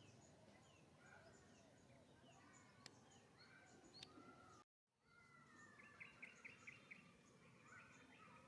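Faint outdoor ambience with small birds chirping and calling in the background. The sound drops out completely for a split second just before halfway, and a quick run of about six sharp chirps comes about two-thirds of the way in.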